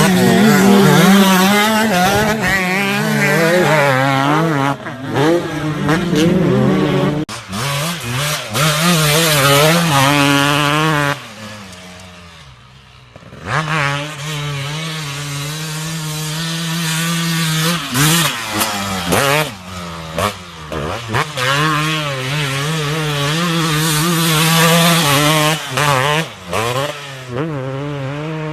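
Two-stroke motocross bike engine being ridden hard, its revs rising and falling again and again as the throttle is worked. The engine note drops away briefly about halfway through, then picks up and runs on.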